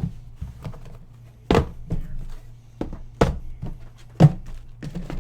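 Dull thunks of trading-card boxes being handled and set down on a table: four louder knocks with lighter taps between them.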